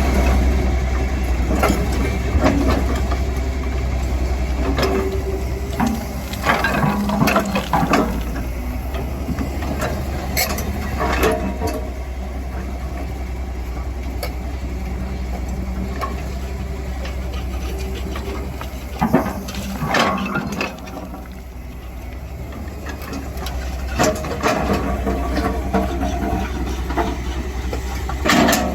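Excavator's diesel engine running steadily with a deep rumble, with scattered clanks and knocks every few seconds.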